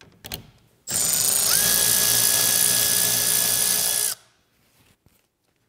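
Cordless electric ratchet with a 10 mm socket running steadily for about three seconds, unscrewing a bolt that holds the radar module to the grille. A few light clicks come just before the motor starts.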